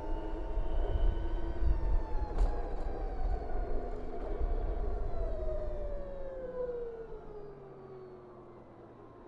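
BMW CE 04 electric scooter's motor whine falling steadily in pitch as the scooter slows down, over wind rumble on the microphone that fades out as the speed drops.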